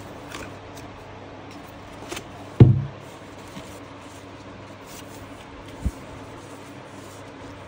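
White cardboard packaging of a Mac Studio box being handled: light taps and rustles, a dull thump about a third of the way in and a smaller knock near the end, over a steady low hum.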